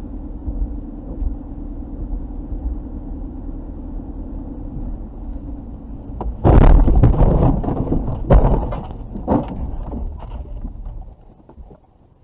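A car's engine and tyres drone steadily, heard from inside the cabin. About six seconds in comes a sudden, loud, drawn-out crash as a sliding car collides with it. Two more sharp bangs follow a couple of seconds apart as the car hits and scrapes along the guardrail, then the sound dies away.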